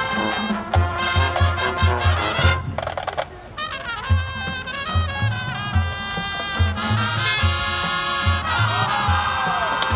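High school marching band playing: brass chords over a steady pulse of low notes. The brass drops out for about a second around three seconds in, then comes back in full.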